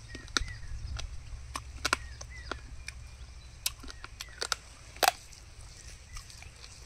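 Chewing and crunching on rabbit curry close to the microphone, heard as a run of sharp irregular clicks, the loudest about five seconds in. Small birds chirp briefly several times in the background over a low steady hum.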